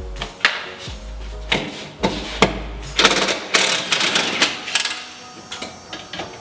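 Sharp knocks and clicks of hand tools working on car body parts, over background music with a deep, pulsing bass that drops out about halfway through.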